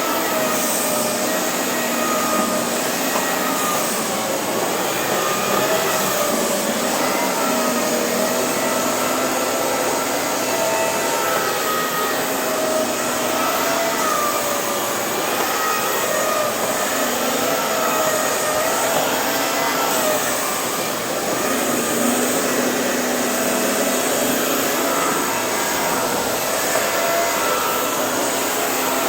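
Vacuum cleaner running without a break, its motor whine wavering slightly up and down in pitch.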